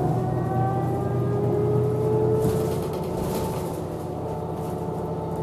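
New Flyer DE40LF diesel-electric hybrid bus pulling away: the Allison EP40 hybrid drive's electric whine rises slowly in pitch over the Cummins ISL diesel's hum, then levels off about halfway, with a couple of brief hisses.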